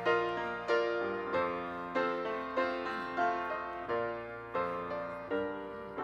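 Grand piano playing, notes and chords struck about every two-thirds of a second and left to ring.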